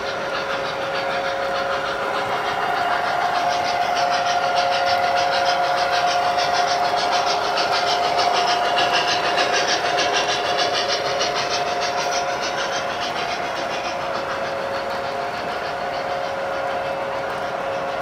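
Model piggyback freight train, flatcars carrying trailers, rolling along the track: a steady rumble of wheels with fast fine clicking, growing louder as the cars pass close and easing off again, over a steady high whine.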